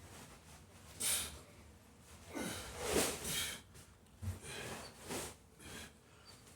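A man breathing hard while lifting a heavy sandbag, with several forceful, noisy exhalations and breaths spaced about a second apart.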